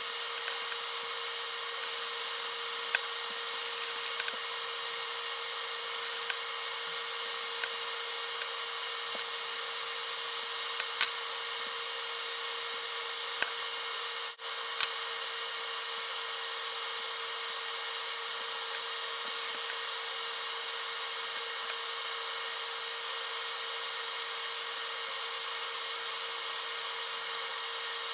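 A steady hiss under a constant hum, with a few faint ticks. It cuts out for an instant about halfway through.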